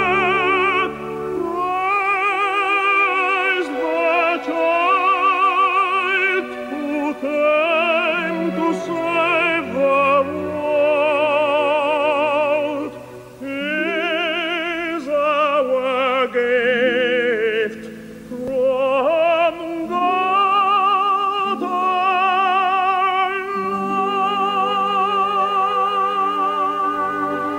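A solo operatic voice singing long phrases with a wide vibrato over sustained accompaniment, with short breaths between phrases.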